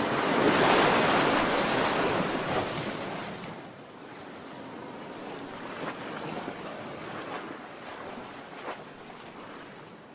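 Ocean waves washing onto a beach. A wave surges in over the first few seconds, then falls away to a quieter wash with faint crackles.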